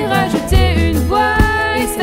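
A song playing: a voice singing a melody over guitar, bass and drums, with a kick drum thudding about once a second.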